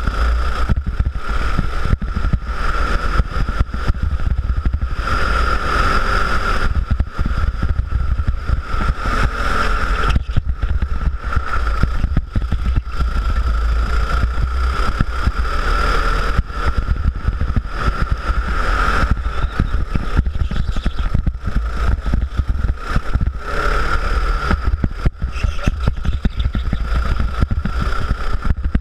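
Go-kart engine running at speed under the driver, its pitch swelling and easing every few seconds as the throttle opens and lifts through the corners. A steady low rumble of wind on the microphone runs underneath.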